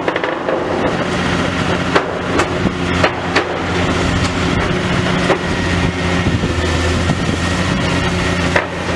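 Demolition excavator's diesel engine running steadily, with scattered sharp knocks and cracks of breaking debris.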